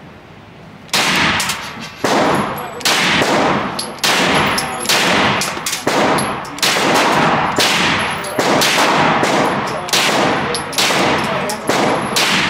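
Semi-automatic 9mm AR-style carbine firing a steady string of single shots, about two a second, starting about a second in. Each shot trails off in a short echo.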